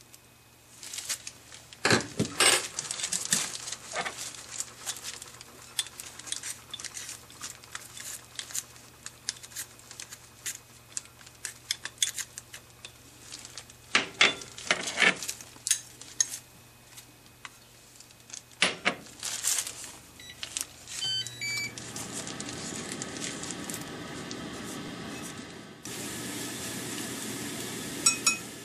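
A metal spoon and utensils clink and tap against a tajine pot as olive oil, chopped garlic and anchovy go in. About two-thirds through, the cooktop gives a few short beeps and starts to hum, and near the end garlic sizzles in the hot olive oil.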